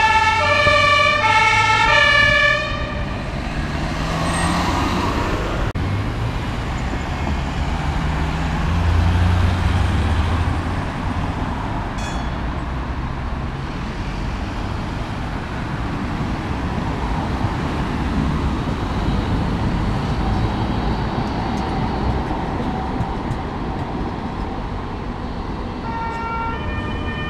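German fire engine's two-tone siren (Martinshorn), switching between a high and a low tone about every half second, cuts off suddenly about two and a half seconds in. Street traffic noise and vehicle engines follow, and the two-tone siren comes back faintly near the end.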